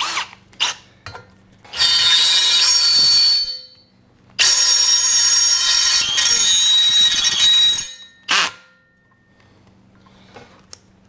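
Cordless drill driving a twist bit into stainless steel plate, the bit squealing high and harsh against the hard steel. A few short trigger bursts come first, then two long runs of about two and three seconds, and a brief burst near the end.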